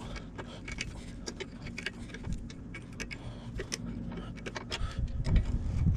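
Scattered light metallic clicks and clinks as the locking pin of a rear bar's swing arm is wiggled and angled out, over a low steady hum.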